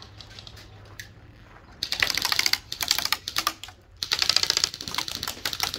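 Airsoft guns firing on full auto: two long bursts of fast, sharp clicks, the first about two seconds in and the second about a second later.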